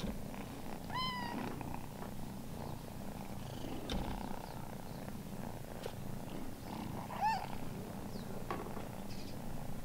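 Cats purring steadily as they are petted, with two short, high calls, one about a second in and a louder one about seven seconds in.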